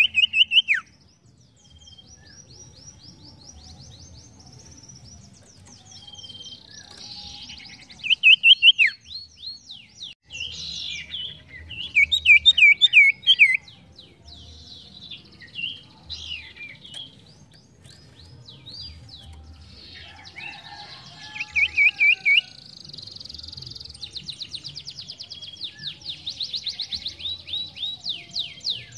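Caged sirtu songbird singing: loud bursts of quick, looping whistled notes between runs of rapid chirps, ending in a long fast trill.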